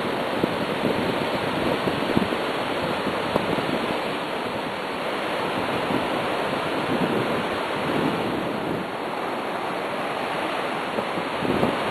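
Surf breaking and washing up a flat sandy beach, a steady, even wash of waves.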